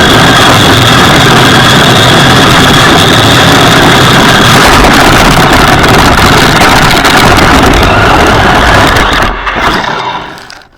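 RC monster truck running over the ground: a loud steady rumble and rattle of motor, drivetrain and tyres, with a thin high whine over it for the first four seconds or so, heard from a camera mounted on the truck itself. The noise dies away near the end.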